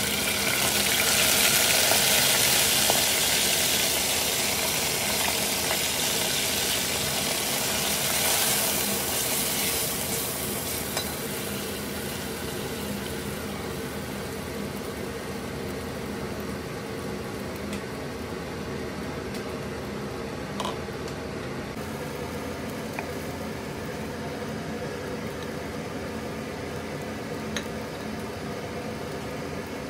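Wet, freshly washed moong dal hitting hot oil in a steel pressure cooker: a loud sizzle at first that flares again about eight seconds in, then settles to a steady, quieter sizzle as the dal is stirred. A few light clicks of the ladle against the pot come through near the end.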